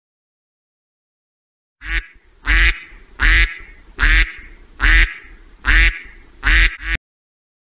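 An animal calling about seven times in a steady rhythm, roughly one call every three-quarters of a second, starting about two seconds in after silence and cutting off abruptly near the end.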